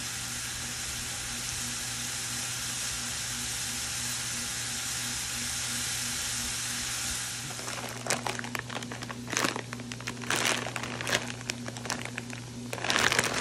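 Strips of seasoned steak sizzling in a nonstick skillet, a steady frying hiss. About seven and a half seconds in it gives way to the irregular crinkling of a plastic bag of riced cauliflower being handled.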